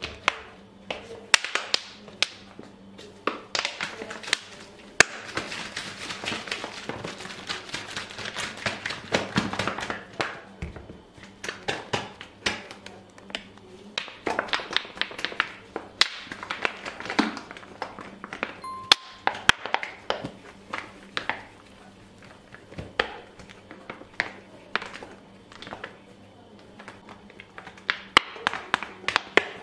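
A plastic PET bottle of flour and water shaken hard to mix it into batter: the contents slosh and thud inside while the thin plastic crackles, in long bursts with short pauses, and sharp taps and knocks come through as the bottle is handled.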